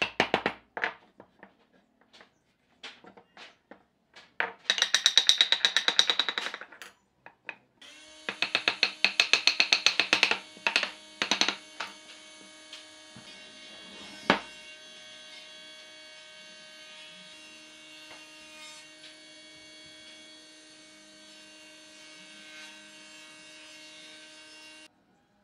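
Pine table-leg parts knocked and tapped together while dry-fitting the joints: scattered knocks, then two quick runs of rapid taps. A steady hum starts partway through and cuts off suddenly near the end.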